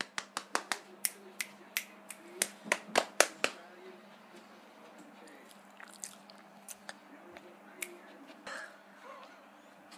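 A quick run of about a dozen sharp, snapping clicks, loudest around three seconds in, then only a few faint scattered clicks.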